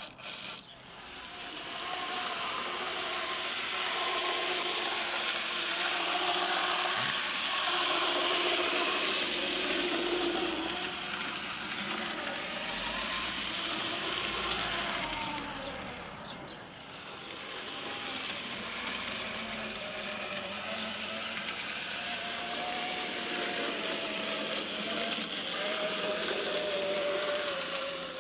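N gauge model tank locomotive running along the track: the small electric motor's whine wavers slightly in pitch over a steady rattle of wheels and gearing, dipping briefly a little past halfway.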